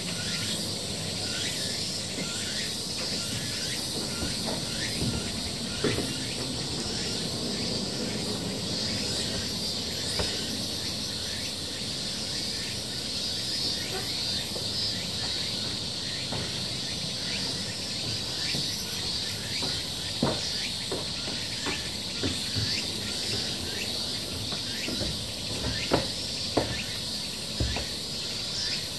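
Steady high-pitched drone of a summer cicada chorus in the surrounding forest, with a few short knocks scattered through.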